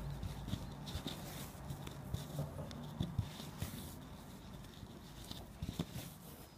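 Irregular soft scratching and small taps of hands working a needle and wool yarn through a rug's foundation, close to the microphone, over a low hum.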